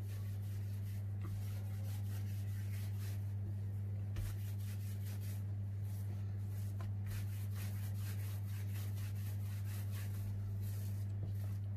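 Hands rolling and pressing a rope of tahini-filled yeast dough on a countertop, with faint soft rubbing strokes, over a steady low hum.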